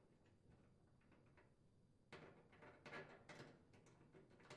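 Near silence, with a few faint clicks and scrapes a little past halfway through from a screwdriver driving mounting screws into the dryer's rear bearing support cup and bracket.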